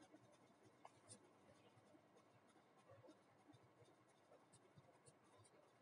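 Near silence, with faint scattered ticks and scrapes of a screwdriver turning screws to tighten down a switch-and-socket gang box.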